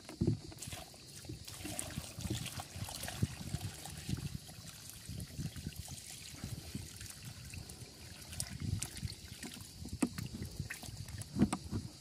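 Light water splashing and trickling as a fish hand net is worked in the shallow water of a pond, with scattered small knocks and clicks.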